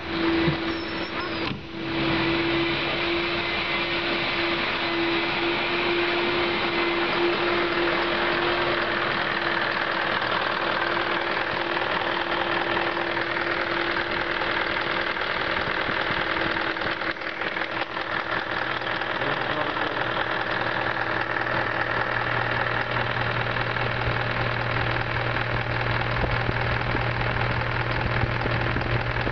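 Car engine idling with the strange noise that is put down to the alternator belt tensioner. A steady whine holds for about the first two-thirds and then fades, and a lower steady hum comes up near the end.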